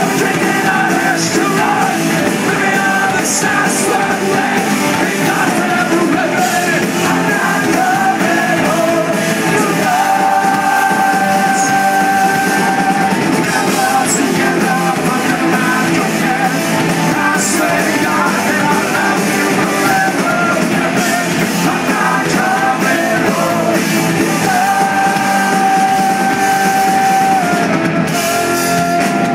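Punk rock band playing live: electric guitars, bass and drums with a lead vocal, loud and dense throughout, with long held notes a third of the way in and again near the end.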